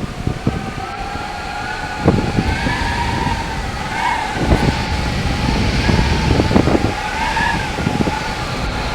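Hurricane-force wind gusting hard, with a steady wavering whistling howl and heavy wind buffeting on the microphone that surges in several gusts.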